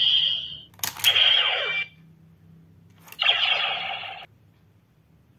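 Recast DX Decadriver toy belt playing its Kamen Ride Blade transformation sound effects through its small speaker: a sharp click about a second in, then two short bursts of falling, sweeping electronic tones, the second stopping about four seconds in.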